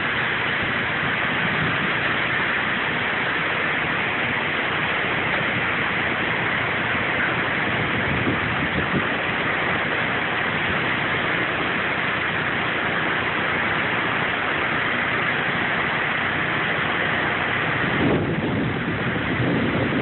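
Heavy rain and strong wind in a thunderstorm, a steady rushing hiss of downpour on the trees, swelling slightly near the end.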